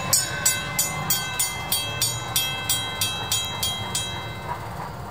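Railroad crossing bell ringing at about three strikes a second, stopping about four seconds in, over the low rumble of a passing train.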